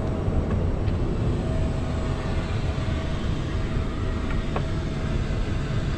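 Steady low rumble and hiss of a private jet cabin's air system, with a faint steady hum and a couple of light clicks.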